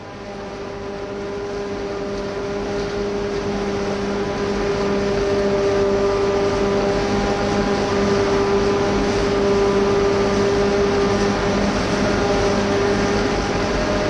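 Claas Jaguar 870 self-propelled forage harvester running under load, chopping miscanthus and blowing it out of the spout: a steady machine drone with a constant hum over a wide rushing noise. It fades in over the first few seconds and then holds steady.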